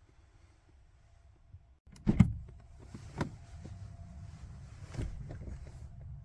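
A loud clunk about two seconds in, followed by a few more knocks and a steady rustling or whirring noise that stops abruptly near the end.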